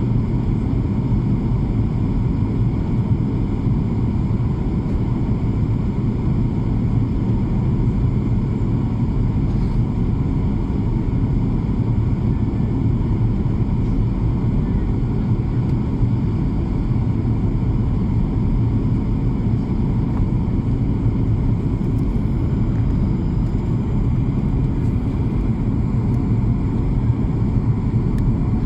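Steady, unchanging low drone of an airplane in flight, with a faint steady hum above it.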